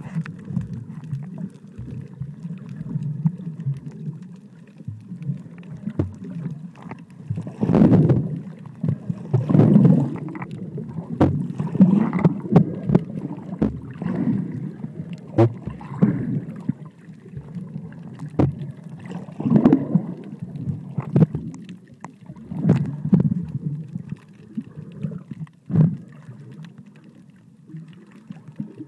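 Muffled underwater noise picked up by the camera's microphone: a low rush of water that swells in surges every couple of seconds, with scattered sharp clicks and knocks.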